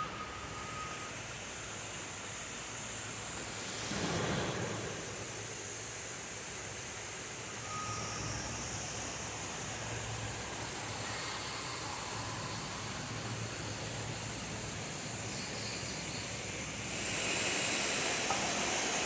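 Steady rushing outdoor noise with a low machinery hum, typical of distant construction work, with a short high beep near the start and again about eight seconds in; the rush grows louder near the end.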